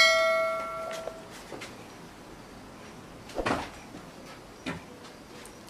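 Struck metal rings out and fades over about a second, followed by a few soft knocks and rustles.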